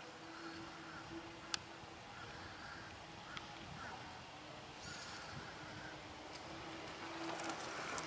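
Faint outdoor background: a low steady hiss and murmur with scattered faint distant calls, a sharp click about a second and a half in and a weaker click a couple of seconds later.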